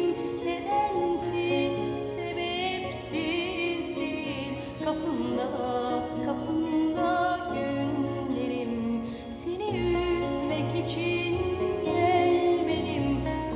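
A song with a singing voice over instruments.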